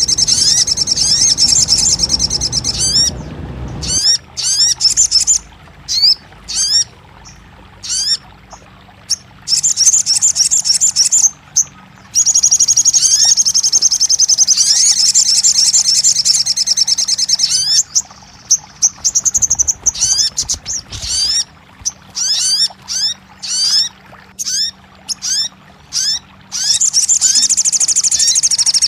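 Recorded sogon song: bursts of fast, high chattering trills a few seconds long, with single chirps in between, over a faint steady hum. It is played as a therapy recording to make a silent caged sogon start singing and answer.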